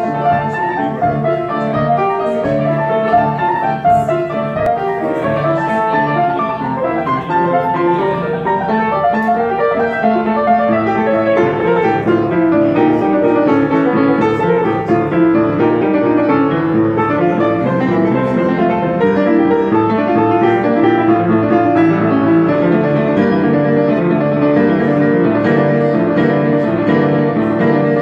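Solo upright acoustic piano played with both hands: a continuous, busy stream of melody and chords over a bass line.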